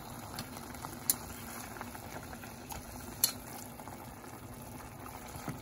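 Cornish hen pieces cooking in liquid in a saucepan, with a steady bubbling. Wooden chopsticks stirring them knock sharply against the pot a couple of times, about one and three seconds in.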